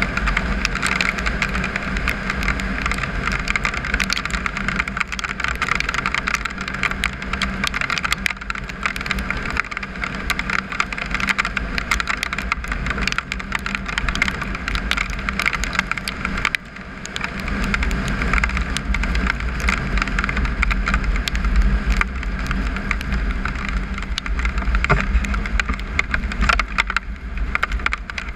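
Triumph Tiger 955i motorcycle's three-cylinder engine running steadily on the move, under a rush of riding noise and a constant crackle of gravel under the tyres. The noise dips briefly about two-thirds of the way through.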